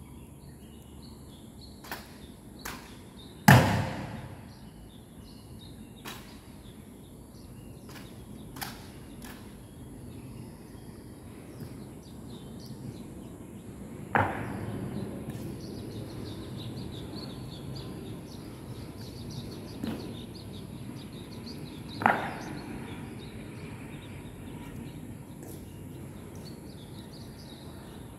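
Sharp, ringing knocks of honor-guard drill on a stone floor, from boot heels and rifles, over steady outdoor background noise. The loudest comes a few seconds in, two more heavy ones come about halfway and about three-quarters through, and fainter clicks fall in between.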